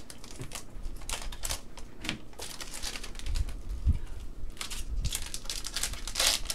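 2021 Panini Contenders basketball trading cards being flipped through by hand: quick, irregular crisp clicks and slides of card stock, with a couple of soft low thumps against the table in the middle.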